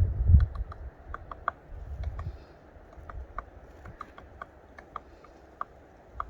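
Wood fire of wooden crates burning in a glass-fronted fireplace: irregular sharp crackles and pops, over a low rumble that surges loudest in the first half second.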